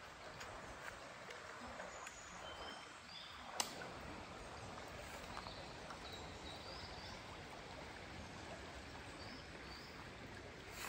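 Shallow woodland river running over rocks, a steady rushing, with faint bird chirps now and then and a single sharp click about three and a half seconds in.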